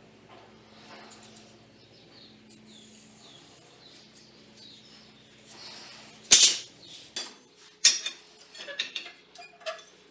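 A faint steady hum with a few small clicks, then about six seconds in a single loud sharp strike, followed by a run of lighter clicks and knocks, typical of steel parts being handled and worked at a welding setup.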